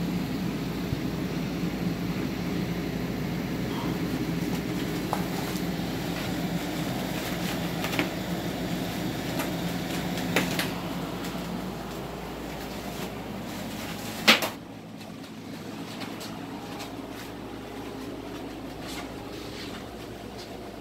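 A steady low hum with scattered clicks and knocks from handling hive equipment. One sharp knock about fourteen seconds in, after which the hum is quieter.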